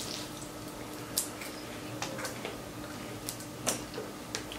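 Close-up eating sounds of crab legs and shrimp dipped in Alfredo sauce: wet chewing and mouth smacks with scattered sharp clicks and crackles of shell being handled, the clearest about a second in and just before the end.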